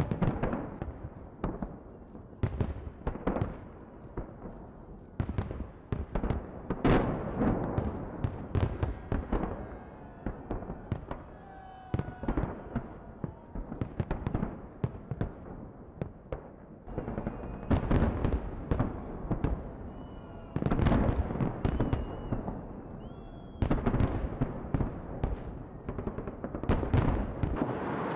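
Fireworks display: a dense, irregular run of shell bursts, bangs and crackles, with a few short whistles in the second half.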